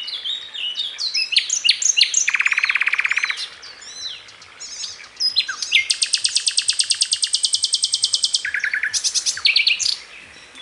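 A bird calling in a varied run of sharp whistles and chirps, broken by rapid rattling pulse trains that sound like gunfire: a short burst about two seconds in and a longer one of about three seconds starting about five seconds in.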